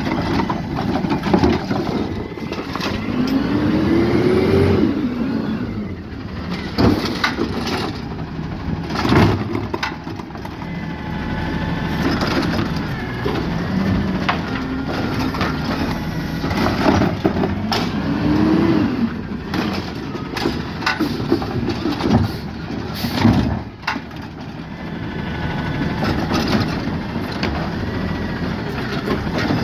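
Peterbilt 520 garbage truck with a Heil Rapid Rail automated arm collecting a recycling cart: the engine revs up and back down twice, about 3 seconds in and again about 17 seconds in, as the hydraulic arm lifts and lowers the carts. Repeated bangs and clatter come from recycling tipping into the hopper and the cart knocking against the arm, over a steady engine rumble.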